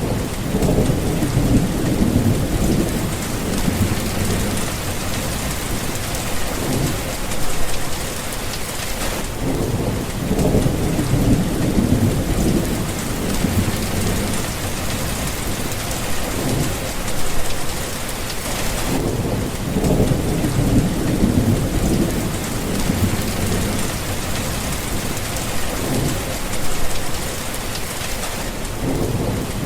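Steady heavy rain with low rolls of thunder rumbling in and fading away every several seconds.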